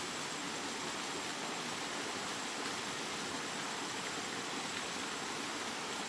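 Steady rain falling, a continuous even hiss with no single drops or thunder standing out.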